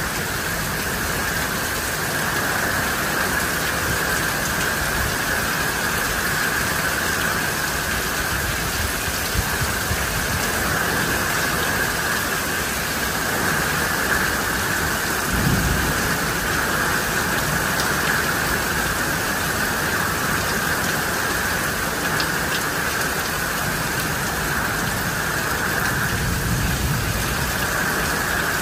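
Steady downpour of heavy rain, with low rumbles of thunder now and then.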